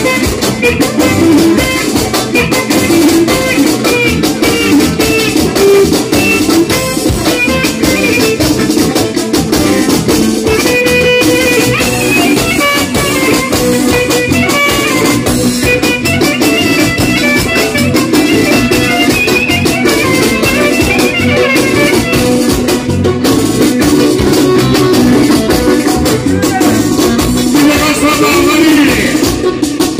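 Live band music: a clarinet plays a fast, ornamented melody over keyboard and a driving percussion beat.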